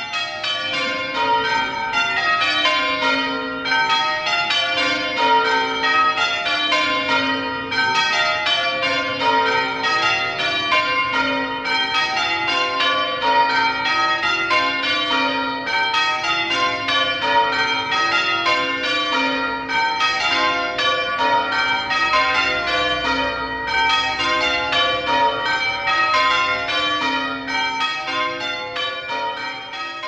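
A ring of six church bells, a mixture of Rudhall and Mears bells, rung in call changes and heard from outside the tower. Each bell strikes in turn in a steady, even rhythm, and the ringing of one stroke runs into the next.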